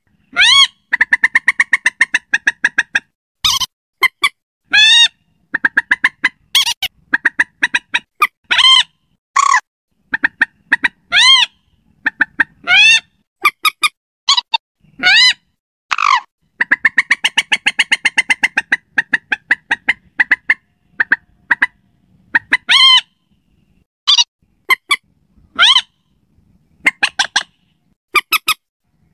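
Common moorhen calls from a bird-lure recording. The calls come as fast runs of short repeated notes mixed with single loud calls that rise and fall in pitch, repeating with short pauses.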